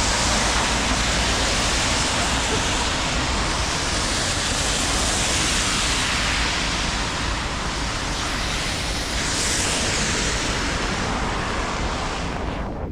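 Steady hiss of rain and traffic on wet city streets, with a swell of tyre hiss on the wet road about three quarters of the way through. The sound cuts off suddenly near the end.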